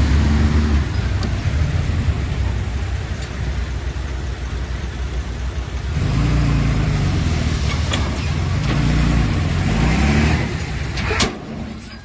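Komatsu D31P bulldozer's diesel engine working under load, its note growing louder and heavier about halfway through. A sharp knock sounds about eleven seconds in, and the engine then quietens.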